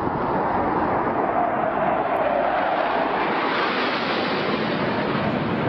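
Fighter jet passing low overhead: a steady roar of engine and rushing air.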